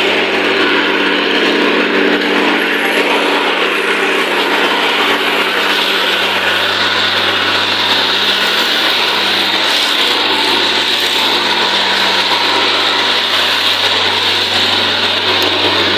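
An engine running steadily with an even drone and a dense rushing hiss over it, unchanging in level.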